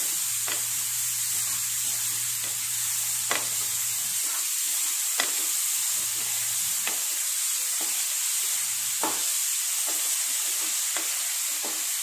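Small wild mushrooms sizzling in hot oil as they are stirred with a spatula in a nonstick kadai, with scattered clicks of the spatula against the pan. The mushrooms have just gone into the onion and mustard-seed tempering and are frying on a low gas flame.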